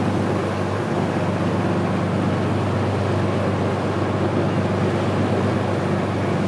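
A motor boat's engine running steadily at a constant pitch, under an even rushing noise.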